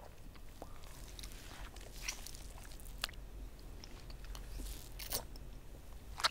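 Close-up wet mouth sounds of someone eating and licking her fingers: scattered lip smacks and small clicks over a low steady hum.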